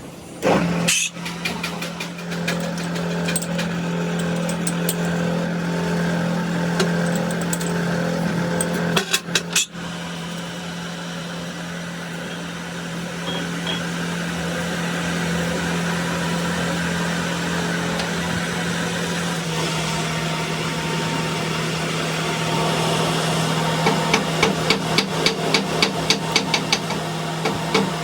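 An engine running steadily with a constant hum. There is a loud clatter about half a second in and another about nine seconds in. Near the end a run of sharp, regular knocks starts, about two or three a second.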